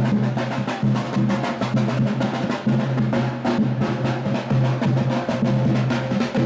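Carnival-style drum band playing a fast, dense beat, with snare-like rolls over a deep drum.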